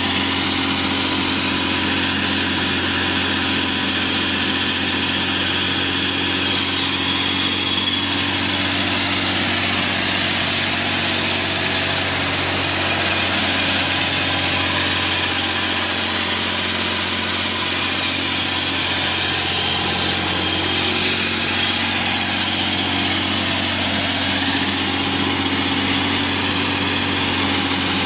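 Diesel engine of a walk-behind concrete floor saw running steadily at a constant speed.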